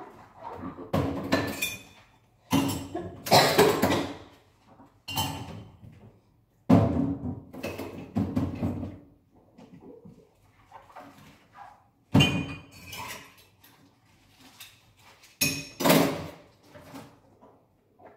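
Dishes, pots and utensils clattering and clinking as they are handled at a kitchen sink, in irregular bursts of a second or two, with short pauses between.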